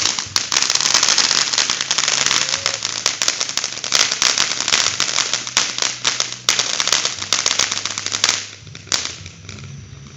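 A small consumer firework going off in a dense, rapid crackle of pops for about eight seconds, then dying away to a few last scattered pops.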